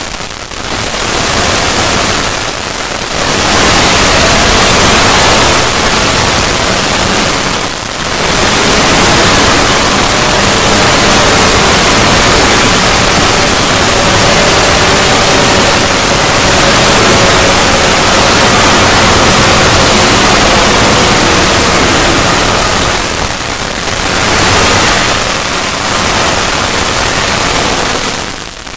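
Loud, harsh distorted noise from an edited 'void' logo sound effect, a dense hissing wash across all pitches with faint wavering tones showing through in the middle. It dips briefly a few times, around three and eight seconds in and again a few seconds before the end.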